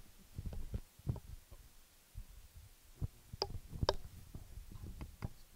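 Irregular soft, low thumps and bumps of handling and movement noise, with a few sharper clicks about three and a half to four seconds in.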